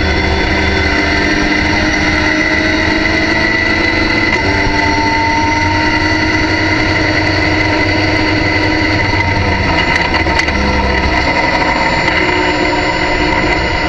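Race car engine heard from inside the cockpit under hard acceleration, climbing in pitch and shifting up a gear. In the second half it drops off as the driver lifts and downshifts into a corner.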